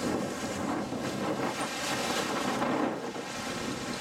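Wind buffeting the microphone over surf washing onto a rocky shoreline, a steady rushing noise.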